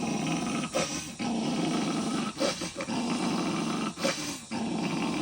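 Puppy growling in long, low rumbles broken by several short breaks, at its own reflection in a window, which he takes for another dog.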